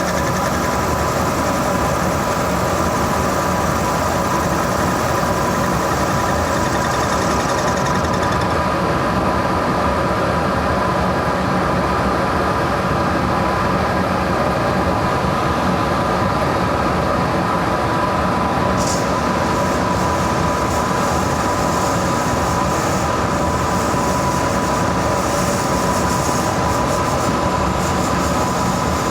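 Monarch 10EE lathe running steadily, with a steady whine, while taking a light facing pass across a white bronze casting.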